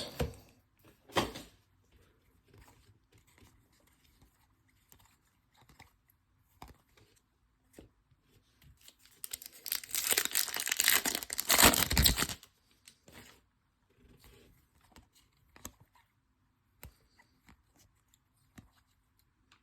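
A foil trading-card pack wrapper being torn open, a crinkling tear lasting about three seconds, starting around ten seconds in. A few short, soft clicks of handling come before it.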